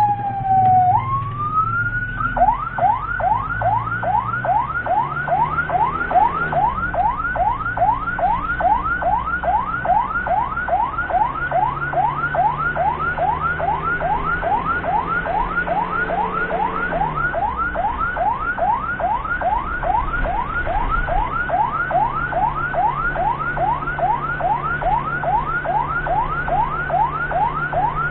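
Ambulance's electronic siren: a falling wail in the first second, then, after about two seconds, a switch to a fast yelp of rising sweeps, about three a second. The vehicle's engine hums underneath.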